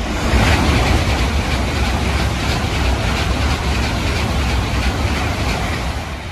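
N700-series Tokaido Shinkansen train running through a station at speed without stopping: a loud, steady rush of air and wheel-on-rail noise that swells within the first half second and begins to fade near the end.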